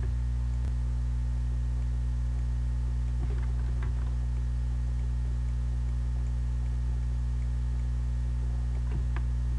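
Steady electrical mains hum picked up by the microphone, with a few faint clicks.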